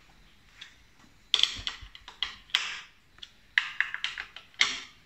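Screwdriver working on a motorcycle's frame fittings: irregular sharp clicks and short scrapes, starting about a second in.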